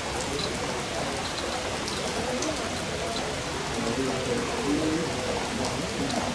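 Steady rain falling, with scattered sharper drops landing close by. Faint, indistinct voices sit underneath, more noticeable in the second half.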